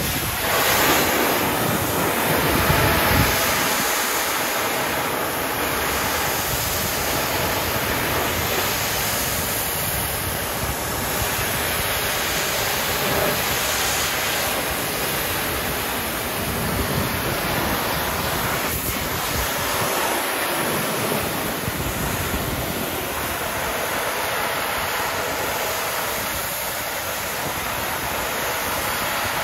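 Pressure washer's telescoping wand blasting a steady high-pressure jet of water against metal louvers and concrete on a building's exterior, a continuous hiss of spray.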